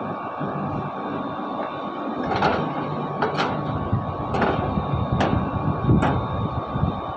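Split air conditioner outdoor condensing unit running, a steady hum with a thin whine, its compressor switched on through a contactor wired directly so that it bypasses the unit's PCB. A series of short knocks comes about once a second from a couple of seconds in.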